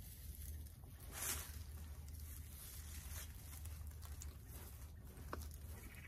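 Dry-grass tinder bundle rustling and swishing as it is swung through the air to fan a smouldering ember into flame, with one louder whoosh about a second in, over a steady low hum.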